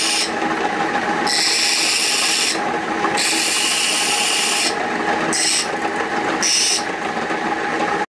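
Lathe-driven grinding wheel spinning with a steady motor hum while a steel turning chisel is pressed to the stone to sharpen it: a harsh grinding hiss comes and goes in several passes of a second or more, the last two only brief touches.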